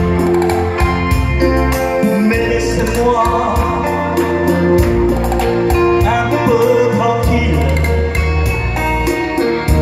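Live amplified electronic keyboard accompaniment with a steady beat, and a man singing into a microphone over it.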